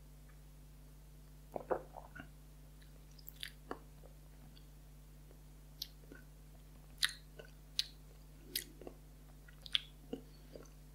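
Faint wet mouth sounds of a person tasting whisky: a dozen or so scattered lip smacks and tongue clicks as the sip is worked around the mouth, over a low steady hum.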